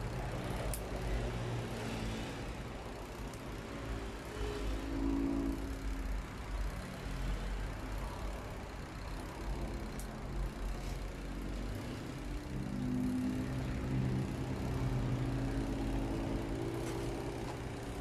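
Low engine hum whose pitch drifts up and down and swells twice, like motor vehicles running or passing. A few faint clicks from wires and test leads being handled.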